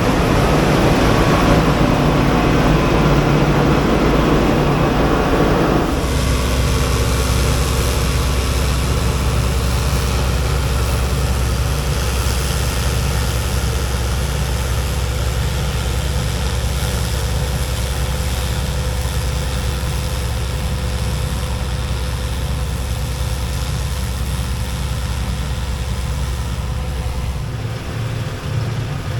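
A heavy vehicle's engine running steadily. About six seconds in, a louder, rushing layer drops away, leaving a steadier low drone.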